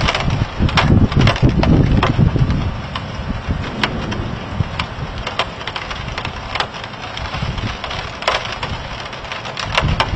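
Thunderstorm: a heavy low rumble for the first two or three seconds, then a steady hiss with irregular sharp ticks and cracks scattered through it.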